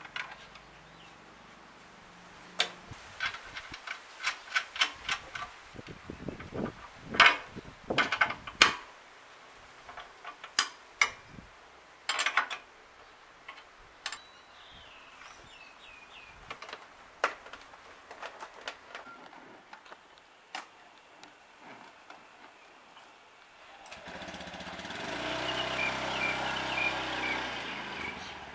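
Sharp metallic clicks and clinks of a hand ratchet wrench and steel parts as a trike-kit side wheel and fender are bolted to a scooter's axle. About 24 s in, this gives way to the Honda Scoopy i scooter's engine running steadily.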